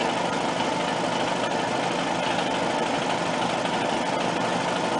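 Shop air compressor running continuously, a steady mechanical drone that does not let up: it is under constant demand from a foundry, so it never shuts off.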